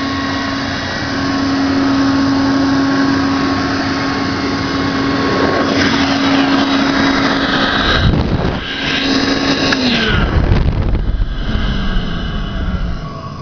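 Hoover Constellation 858 spherical canister vacuum cleaner running with a steady motor whine. From about eight seconds in there is rumbling and shifting noise, and about ten seconds in the whine falls in pitch as the motor slows, fading near the end.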